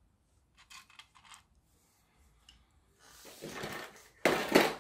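A few light taps of small plastic parts set down on a table, then a small clear plastic bag rustling and crinkling as it is handled, loudest in a short crinkle near the end.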